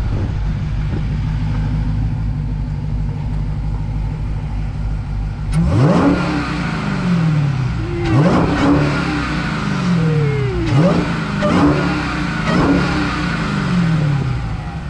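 Supercharged 6.2-litre Hemi V8 of a Dodge Challenger SRT Hellcat idling, then revved five times in quick succession about halfway through, each rev rising sharply and falling back toward idle.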